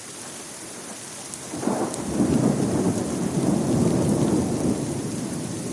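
Heavy rain pouring steadily. About one and a half seconds in, a long rumble of thunder builds, rolls on for a few seconds and then slowly eases.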